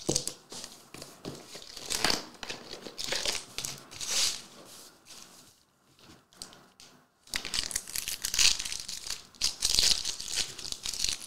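Foil trading-card pack wrapper crinkling in short bursts as it is handled. It goes quiet for a couple of seconds in the middle, then crinkles and tears steadily from about seven seconds in as the pack is ripped open.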